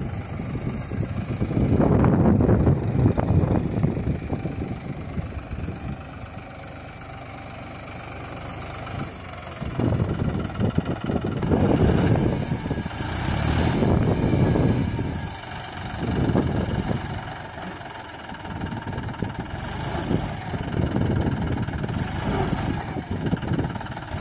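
John Deere 5204 tractor's three-cylinder diesel engine running, rising and falling in repeated swells as it is revved to work the hydraulic tipper that lifts the trailer and dumps its load of sand.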